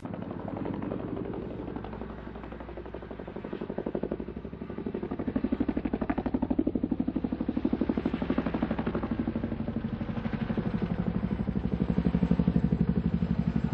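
Fishing reel being wound in steadily, a fast, even mechanical whirring rattle that eases a little early on and then picks up again.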